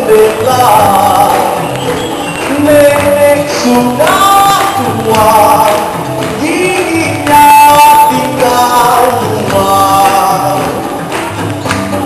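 Live performance of a Malay folk song: voices singing over a band accompaniment with a steady percussion beat.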